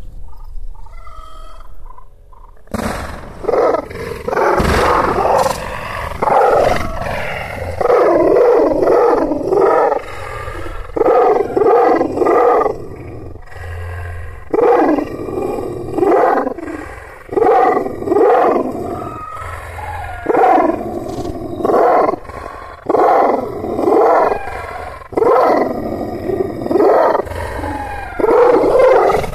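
Aksaray Malaklı shepherd dog, a Kangal-type Anatolian guardian dog, barking in deep, loud calls, one burst about every two seconds, starting about three seconds in.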